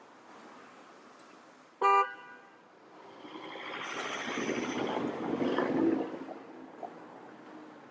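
A single short horn toot about two seconds in, then a car passing close by, its noise swelling and fading over about three seconds while a tram rolls into the stop behind it.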